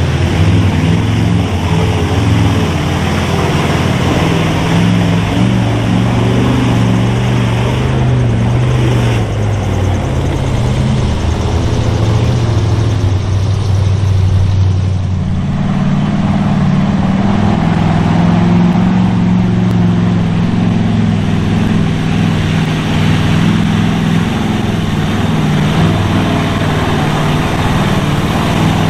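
Big-engined mud-bog trucks driving through deep mud, engines running hard with the pitch rising and falling as the throttle is worked. About halfway through the engine note changes as a different truck is heard.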